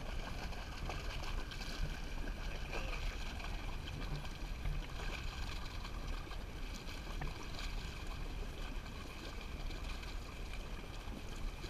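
Steady ambient noise aboard a fishing boat at sea: a low rumble with the wash of water along the hull, with no distinct events.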